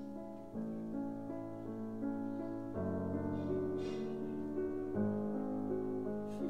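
Background piano music: slow, held chords that change about every two seconds.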